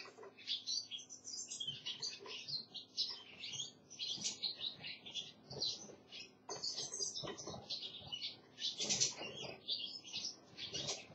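Small caged songbirds chirping and twittering, a rapid run of high notes with no real break, with a few soft knocks from movement in the cage.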